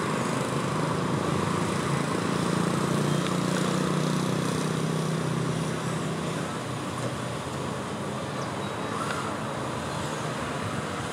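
Steady outdoor background noise with a low hum that fades out about six seconds in.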